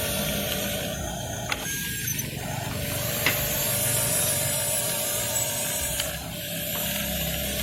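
Radio-controlled model bulldozer working: its small electric drive motors and gearing whir steadily, with a few sharp clicks along the way.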